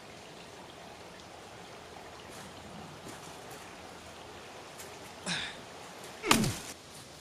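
Steady rush of a creek flowing, with two sudden close scuffing sounds about a second apart near the end, the second the loudest.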